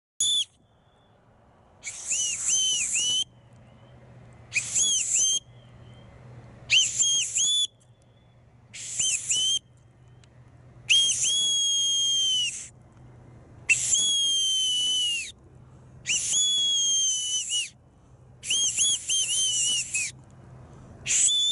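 Boatswain's whistle (bosun's call) blown in a series of about ten very high, loud blasts, roughly one every two seconds. Some blasts are warbled with quick pitch dips; the longer ones are held on one tone that sags slightly in pitch.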